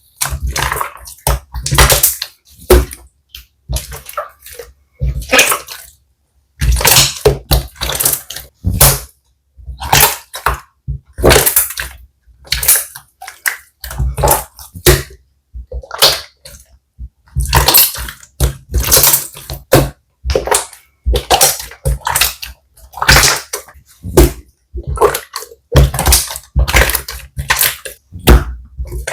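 Slime being squeezed and stretched by hand close to the microphone: squelches, pops and crackles in quick irregular clusters with brief pauses between them.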